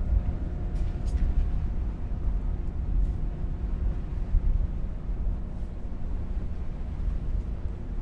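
Car ferry's engines running with a steady low rumble and a faint hum over it.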